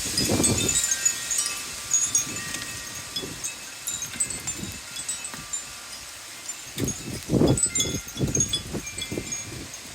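Wind chimes ringing irregularly, many clear tones overlapping, as gusty wind sets them swinging. Wind buffets the microphone with low rumbles near the start and again about seven seconds in.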